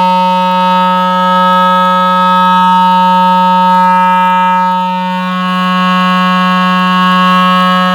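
Loudspeaker driven by a breadboarded AN272U 5-watt audio power amplifier IC, playing a loud, steady, buzzy test tone from an audio signal generator at one low pitch.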